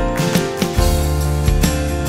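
Background music: an instrumental track with held notes over a steady beat.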